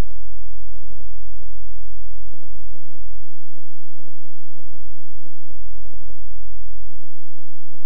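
Loud, steady low hum with irregular throbbing thumps over it and no speech, the kind of noise heard on a degraded old videotape sound track.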